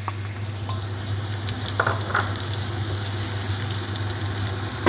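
Sliced onion and pepper sizzling as they sauté in a frying pan, with a couple of light clicks about two seconds in.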